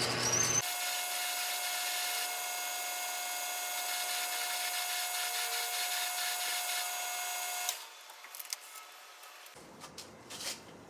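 South Bend lathe running while a drill bit cuts into the end of a shaft: a steady whine with a scraping, rasping hiss over it. It stops suddenly about three quarters of the way through, leaving a few faint clicks and knocks.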